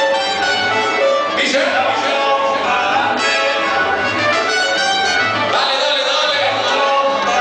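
Latin dance music with trumpets and other brass, played loud over a sonido sound system, with a steady bass beat.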